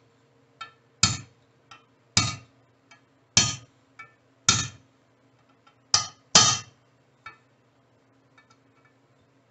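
Hammer tapping a punch to drive a new ball bearing, a light press fit, into a Honda GL1100 rear engine cover: gentle metallic taps on the bearing's outer race, one about every second, with lighter clinks between as the punch is moved around. The taps stop with a couple of seconds to go, leaving only a few faint ticks.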